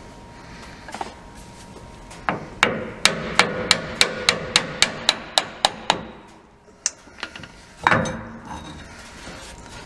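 Hammer striking a pickup driveshaft's rear U-joint at the differential pinion yoke: about a dozen sharp metal taps, roughly three a second, knocking the joint loose so the driveshaft can come out. A single knock and then a heavier clunk follow near the end.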